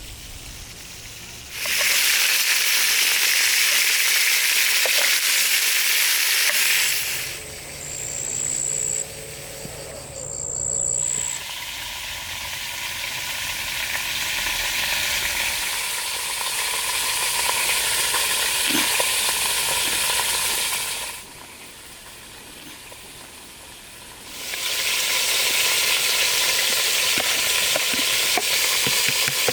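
Food sizzling as it fries in a hot pan, in three loud spells that start and stop suddenly, with quieter gaps between them.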